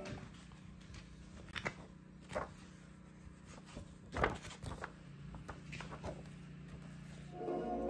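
Handling noise as a vinyl record is changed on a turntable: a few separate soft clicks and knocks, the loudest about four seconds in, over a low steady hum.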